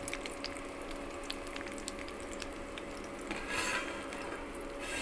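Stuffed bitter gourds frying in hot mustard oil in a kadai: a steady sizzle with small crackles. Near the end the sound swells briefly as a steel lid is brought over the pan.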